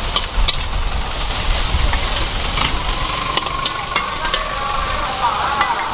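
Pad thai frying in a wok, a steady sizzle with a metal spatula scraping and clicking against the wok as it is stirred. A low rumble runs underneath in the first half.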